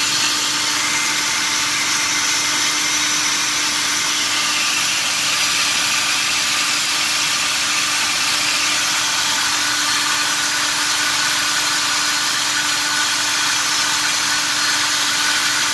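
Ford 302 V8 crate engine running at a steady fast idle with no load during cam break-in, held at about 2,000–2,500 RPM.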